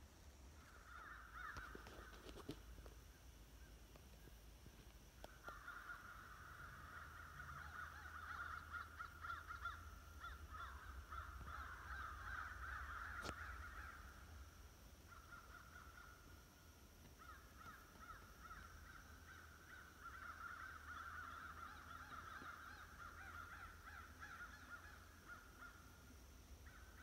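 Faint animal calling, sounding in long stretches of several seconds at a time with short breaks, over a steady low rumble.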